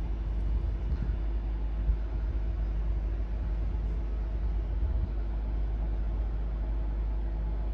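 Steady low rumble of wind buffeting the microphone, with a faint steady hum above it.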